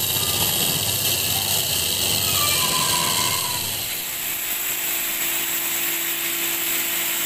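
Power drill with a large core bit boring a round hole through a wall for a pellet stove's flue pipe, running continuously with a steady high whine. A low rumbling fades about four seconds in, leaving a steadier hum.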